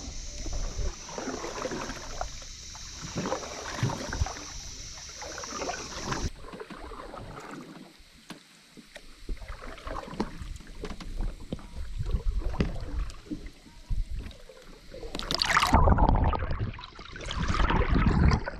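Canoe paddles dipping and splashing in calm river water in an uneven rhythm of strokes. A louder rushing surge comes near the end.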